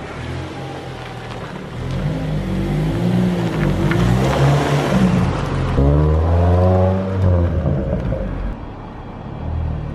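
A Ford Fiesta hatchback's petrol engine accelerating as the car drives past close by, its engine note climbing and peaking with a rush of tyre and road noise about four to five seconds in. After a cut, the car revs up again with a rising engine note as it pulls away.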